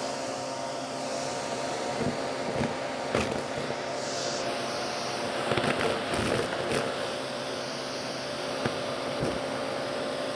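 Vacuum cleaner running with a steady motor whine while its hose tool sucks up debris from a shag rug. Scattered crackles and clicks come as bits are drawn into the hose, thickest from about two to seven seconds in.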